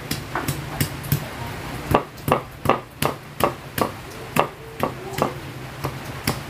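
Knife chopping garlic cloves on a cutting board: a run of sharp taps, a few at first and then about four a second from about two seconds in.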